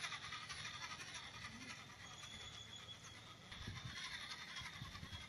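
Small DC motor, run off a 9-volt battery, spinning a plastic pencil sharpener with a pencil pressed into it: a faint, steady whir with a thin high whine and the scratchy grinding of the pencil being shaved. A few soft low knocks come in the second half.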